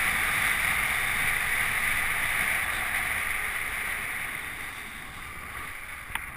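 Skis hissing and scraping over packed snow with wind rushing past, a steady hiss that fades over the last few seconds as the skier slows down. A short click near the end.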